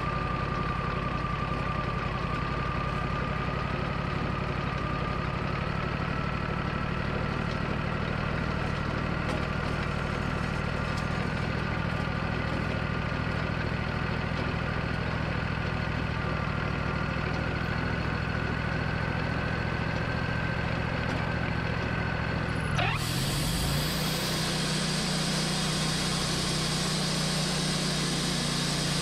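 Wood-Mizer LT40 bandsaw mill's engine running steadily, with a whine that slowly creeps up in pitch. A little over 20 seconds in, the low end dips briefly and a loud hiss comes in suddenly and carries on: the saw blade drive engaging and spinning up, ready to cut.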